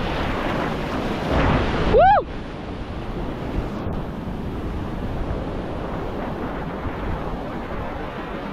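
Steady wash of sea surf with wind buffeting the microphone. About two seconds in comes a brief high call that rises and falls in pitch.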